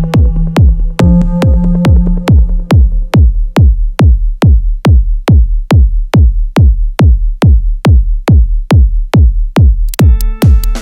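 Live techno from a Roland TR-8S drum machine and Korg synths: a steady four-on-the-floor kick drum at about two beats a second, each kick dropping in pitch. A held bass note fades out in the first few seconds, leaving the kick on its own, and a synth chord with a bright hiss comes in near the end.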